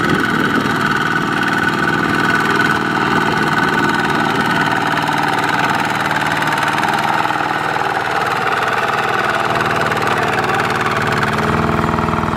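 Single-cylinder diesel engine of a two-wheel walking tractor running steadily as it drags a trailer loaded with rice sacks through sticky mud. Its note shifts near the end.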